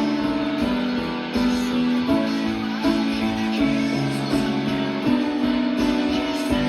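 Rock band music with guitar and sustained chords changing about once a second, with a keyboard part played along.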